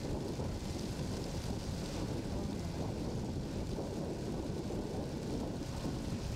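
Outdoor ambience: a steady, uneven low rumble, with wind buffeting the microphone.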